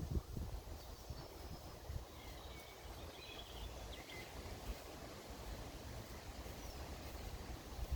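Faint birdsong: a few short, high chirps and calls from small songbirds over a low, steady outdoor rumble.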